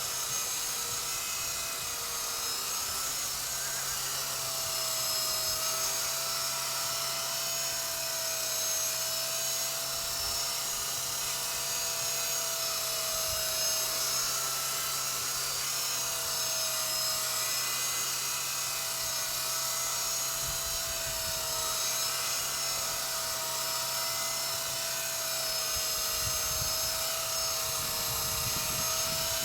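Walkera V120D02S micro RC helicopter hovering: a steady high whine from its electric motors and rotors, the pitch wavering slightly. Low wind rumble on the microphone comes in now and then, most of all near the end.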